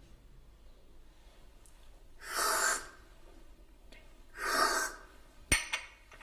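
A person breathing heavily: two loud breaths about two seconds apart, then two sharp clicks near the end.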